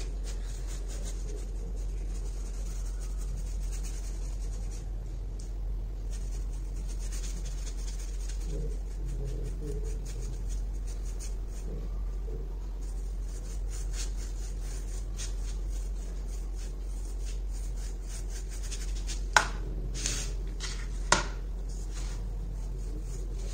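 Stencil brush scrubbing and dabbing white chalk paint into a textured MDF clock base: a soft, scratchy brushing over a steady low hum, with two sharp clicks near the end.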